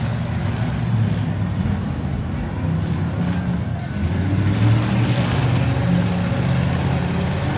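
V8 engines of demolition derby cars running and revving, their pitch rising and falling as the cars are driven.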